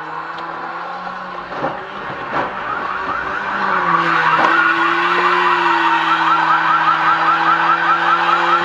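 A rapid warbling siren starts about two and a half seconds in and keeps going over a steady low hum, getting louder a second later; two short knocks come just before it.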